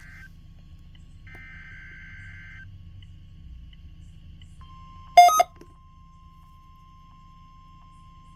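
NOAA Weather Radio's Required Weekly Test signal: the buzzing digital warble of the SAME alert-header data bursts, the tail of one and then a full second burst. About five seconds in comes a loud double beep. Under it a faint steady warning-alarm tone starts and holds.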